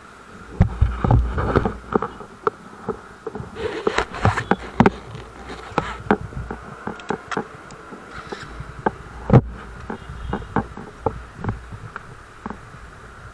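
Handling noise from a phone being moved and fitted near a motorcycle's handlebar: a string of irregular clicks, knocks and rubs over a steady buzzing hum.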